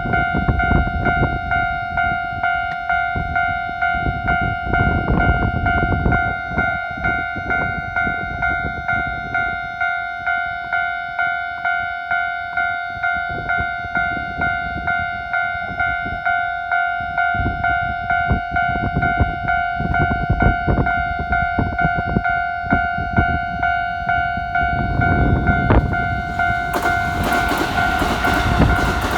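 Electronic warning bell of a Japanese railway level crossing ringing in a steady repeated rhythm. Near the end a train's rumble and wheel noise rise under it as the train reaches the crossing.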